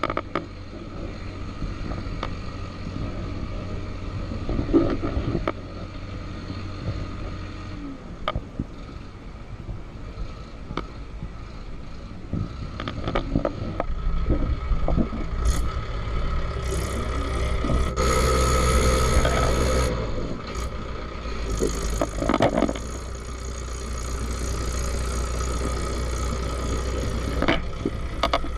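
Motorcycle engine running while riding along a road, a steady low hum that shifts pitch a few times and is loudest about eighteen seconds in.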